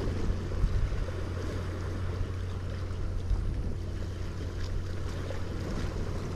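Steady wind and sea-surf noise: a constant low rumble of wind on the microphone under the hiss of waves washing the reef.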